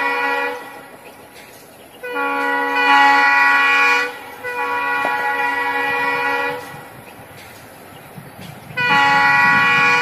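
WDG5 'Bheem' diesel locomotive's horn honking repeatedly as it approaches: a multi-tone blast that ends about half a second in, two long blasts of about two seconds each, and another beginning near the end. Low engine rumble builds under the last blast.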